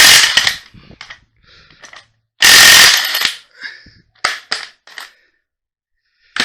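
Impact wrench hammering on the top strut bolt, stopping just after the start, then one more short burst about two and a half seconds in. Between and after the bursts come a few light metallic clinks of the socket, nut and tools.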